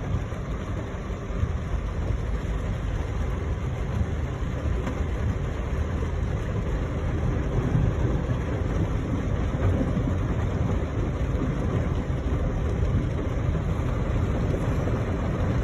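Steady noise of a car driving along a wet, flooded road in the rain, heard from inside the cabin: engine and tyre noise mixed with rain.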